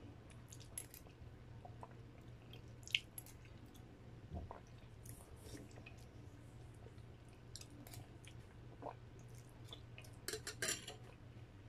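Quiet chewing of noodle soup, with scattered clicks of a metal spoon against a glass bowl and a quick run of clicks near the end.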